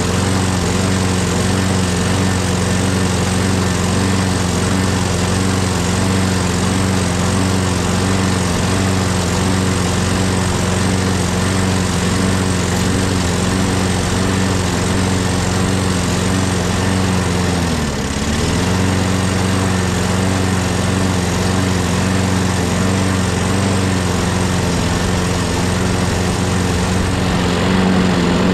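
Craftsman lawnmower's Briggs & Stratton Quantum single-cylinder engine running steadily. About two-thirds of the way through it dips briefly in speed, then picks back up. It runs on a freshly cleaned carburetor with its intake air leak sealed.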